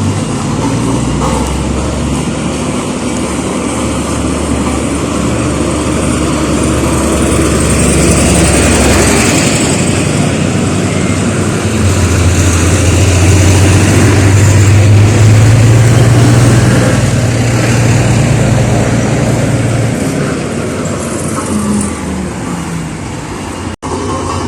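Heavy vehicle or construction machinery engine running close by: a deep steady engine drone that strengthens in the middle, over loud continuous road noise.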